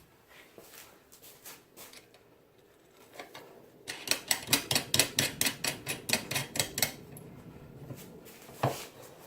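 Rapid run of sharp metallic clicks, about seven a second for some three seconds, then one louder click, as a bolt is fitted into the belt grinder's steel tracking assembly.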